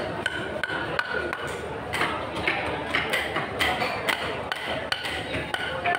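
Irregular knocks, roughly twice a second, as a wooden stick strikes the spine of a knife to drive it through the neck of a large fish, with market chatter behind.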